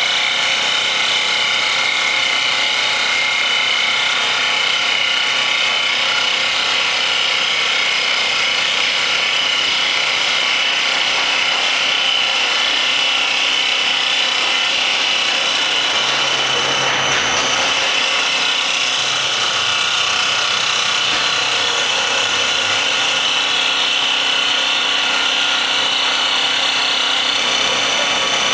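CNC wood turning lathe cutting a spinning wooden blank: a steady, loud, high-pitched cutting noise, with a brief disturbance about two-thirds of the way through.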